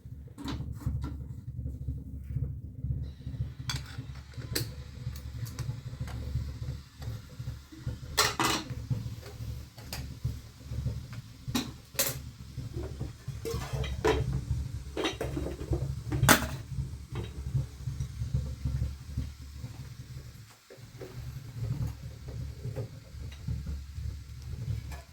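A scatter of sharp knocks and clinks of household things being handled, the loudest a little over a quarter and about two-thirds of the way in, over a steady low rumble.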